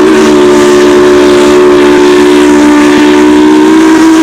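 Frisco 1630 decapod steam locomotive's steam whistle blowing one long, steady blast, several tones sounding together as a chord.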